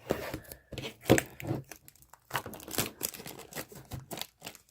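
Packaging on a trading-card box being torn open: irregular bursts of tearing and crinkling, the loudest about a second in.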